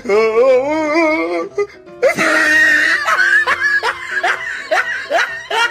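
Comedy laugh soundtrack over music. It opens with a wobbling, laugh-like voice, then a loud harsh shriek comes about two seconds in, followed by a run of short rising laugh-like yelps.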